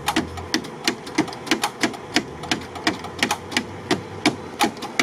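Steady metal-on-metal tapping, about three sharp knocks a second, of a small steel sapper shovel striking the UAZ's starter to free it when it won't crank.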